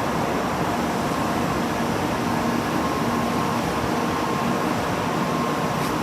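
Steady mechanical hum and noise with a faint, unchanging high tone, with no change in level.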